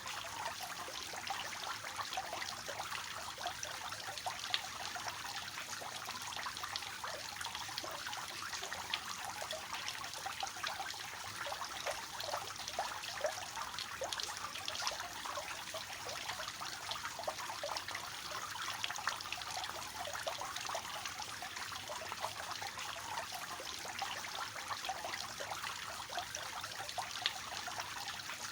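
Water falling and splashing steadily from a three-tiered fountain, an even trickling patter with many small splashes.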